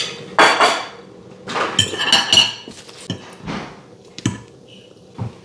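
Metal fork scraping and clinking against a ceramic dinner plate, with a few sharp knocks of tableware.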